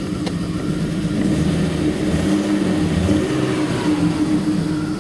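1991 BMW 525i's 2.5-litre straight-six running unevenly, its speed wavering up and down mid-way: a shaky idle that the owner thinks might be down to the fuel filter.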